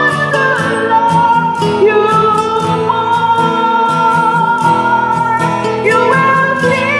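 A woman singing a ballad karaoke-style into a handheld microphone over a backing track with guitar and a steady beat.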